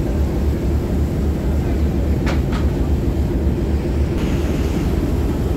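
A boat's engine running with a steady low rumble, heard from on board. Two short sharp sounds come a little over two seconds in, and a rushing hiss joins about four seconds in.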